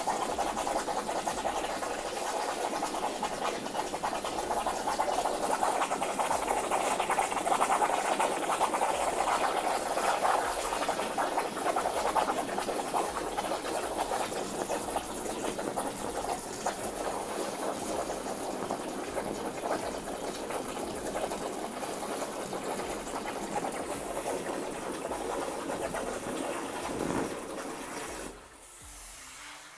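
Plasma torch of a CNC plasma table cutting through sheet metal: a steady hiss of the plasma arc and cutting air. It cuts off sharply near the end as the arc shuts off with the cut complete.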